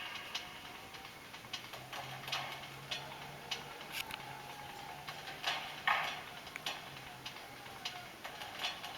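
Faint, irregularly spaced clicks and ticks, a few louder ones about six seconds in, over a faint low hum.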